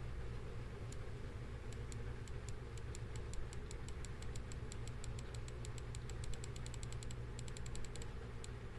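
Light, sharp clicking at a computer desk: a couple of single clicks, then from about two seconds in a fast run of clicks, several a second, stopping just before the end, over a low steady hum.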